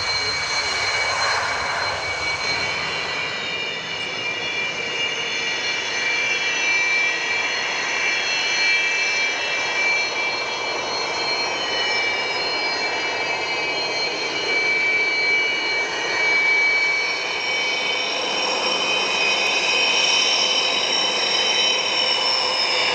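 Sukhoi Su-27P jet fighter's twin AL-31F turbofan engines running, a continuous rushing noise with several high whining tones that slowly drift up and down in pitch.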